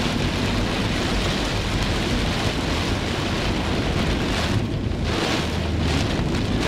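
Heavy rain hitting the roof and windscreen of a moving car, heard from inside the car as a dense, steady hiss over a low, steady rumble of the car on the road.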